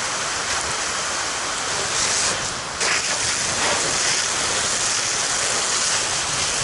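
Fire hose nozzle spraying a steady, loud rushing jet of water onto burning debris, the spray hissing as it hits the fire. The rush dips briefly just before three seconds in.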